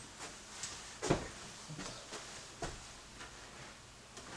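A few soft knocks and thuds in a quiet small room, the loudest about a second in and another a second and a half later: footsteps on the floor and a chair being taken hold of at a table.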